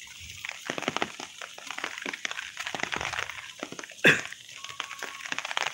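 Irregular crunching and crackling of footsteps on a wet dirt path, with a dog giving one short, loud bark about four seconds in.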